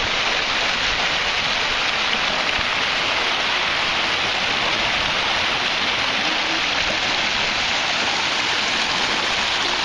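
A swollen, fast-flowing river rushing over rocks in small white-water rapids: a steady, even rush of water.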